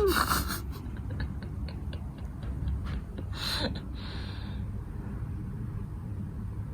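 Soft, even ticking, about five ticks a second for a couple of seconds, over a steady low hum, with one brief rustling burst about three and a half seconds in.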